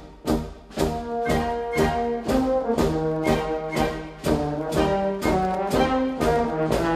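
Military band playing a march, brass to the fore. Held brass chords sit over drum and cymbal beats that come about twice a second.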